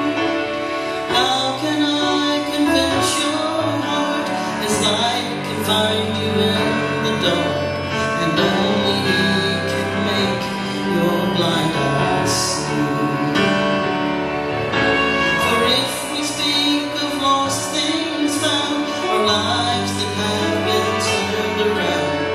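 A woman singing a gospel song into a microphone over steady instrumental accompaniment.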